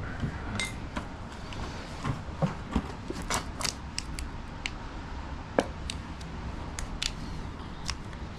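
Irregular small clicks, taps and short scrapes of hands and tools working a tire onto an e-bike's rear rim, with one sharper click a little past the middle.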